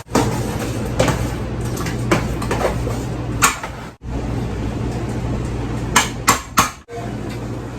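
A cooking utensil knocking and scraping against a pot while food is stirred, with a few separate knocks and then three quick ones near the end, over a steady low hum.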